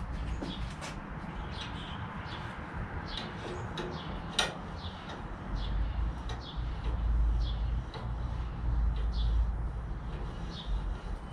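Birds chirping over and over in short notes, with a low rumble swelling through the middle and one sharp click about four seconds in.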